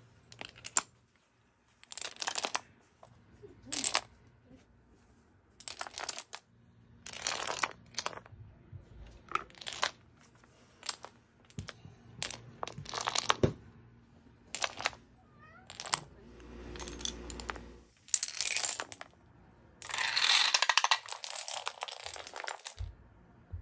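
Dominoes toppling in a series of separate short runs, each a quick clatter of clicks as the tiles knock into one another and land on the floor, with a longer, denser clatter near the end.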